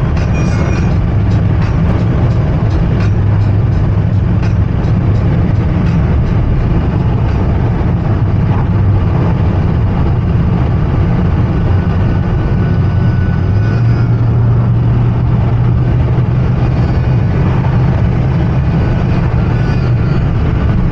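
BMW 5 Series F10's N20B20 2.0-litre turbocharged four-cylinder engine and road noise while driving: a steady low drone whose pitch steps up about two-thirds of the way through.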